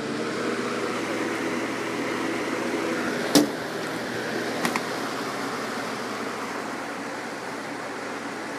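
A 1990s Holmes box fan running on its high speed, just switched up: a steady rush of moving air over a low motor hum. A sharp click about three and a half seconds in, and a fainter double tick a second later.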